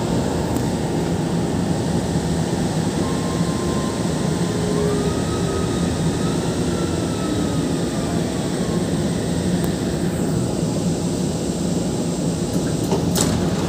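MRT-3 light-rail train running slowly into the station and braking to a stop, heard from inside the car as a steady rumble of wheels and running gear. A faint whine rises a little partway through and then falls slowly, and a sharp click comes shortly before the end.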